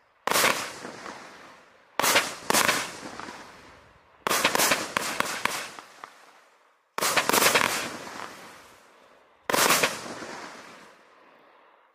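Vivid Pyrotechnics' Havoc, a 36-shot 30 mm firework cake, firing its closing shots: five sharp bursts about two seconds apart, some doubled or in quick clusters. Each burst trails off in a dense crackle of blinking stars that fades over a second or two.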